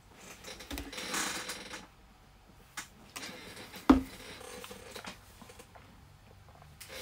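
Trading cards being handled on a tabletop playmat: a short rustling slide of cards about a second in, a few light clicks, and one sharp knock about four seconds in as something is set down on the table.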